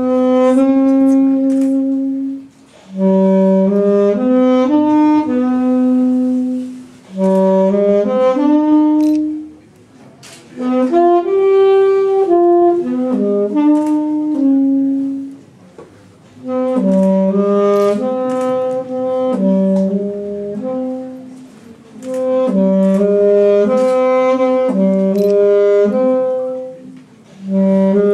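A single wind instrument playing a slow solo melody, one held note at a time, in phrases a few seconds long with short breaks between them.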